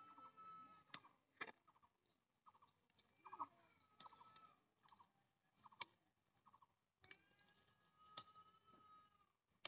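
Faint clucking of chickens, in short repeated calls with a few longer drawn-out ones. Several sharp snaps come through it, as green chillies are picked off the plants.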